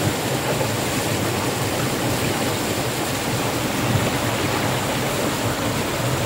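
River water flowing with a steady, even rushing.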